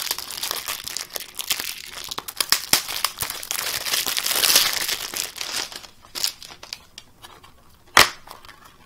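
Plastic shrink-wrap film being peeled and crumpled off a clear plastic Blu-ray case, a dense crinkling that is heaviest about four and a half seconds in and thins out after about six seconds. Near the end comes a single sharp plastic click as the case is handled and opened.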